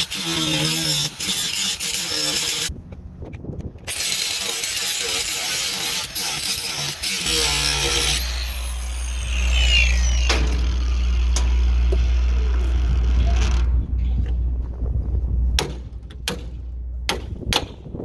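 Cordless angle grinder running against steel, grinding at the welds on an old forklift door handle. It stops for about a second and starts again, then winds down. Near the end come about half a dozen sharp hammer blows on metal.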